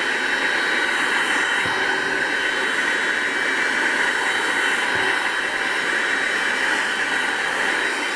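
Small cordless handheld vacuum cleaner running steadily with a high motor whine as it sucks up drilling debris from a foam track bed.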